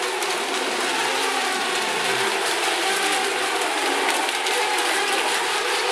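Several small electric radio-controlled racing boats running together around the pool: a steady mixed whine of their motors and propellers.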